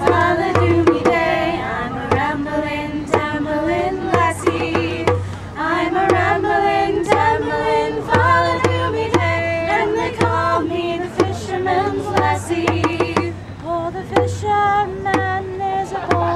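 A small vocal group singing a folk song together, accompanied by a hand-held frame drum struck on a steady beat.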